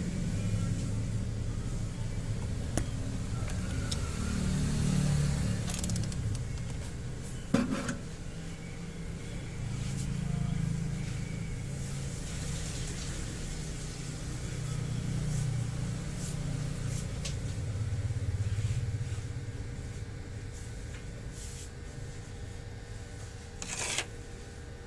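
Low road-traffic rumble that swells and fades several times as vehicles go by, with a few sharp clicks, one about 8 seconds in and another near the end.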